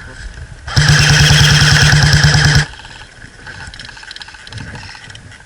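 Airsoft electric gun firing one rapid full-auto burst of about two seconds, the gearbox buzzing under a fast, even stream of shots. It starts about a second in and stops abruptly.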